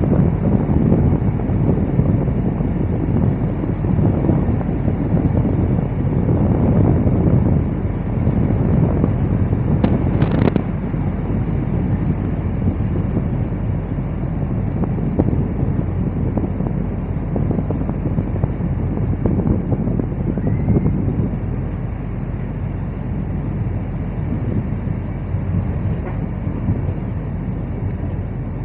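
Steady rumble of a train in motion, heard from inside a passenger car, with a brief sharp click about ten seconds in.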